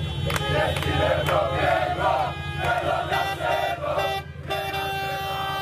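Street crowd of celebrating football fans chanting and shouting, with claps. From about halfway, car horns honk, with a brief break and then one long steady blast near the end.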